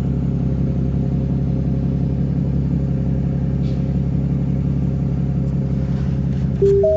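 A vehicle engine idling steadily with an even, low hum. Near the end it cuts off and a few sustained music notes start.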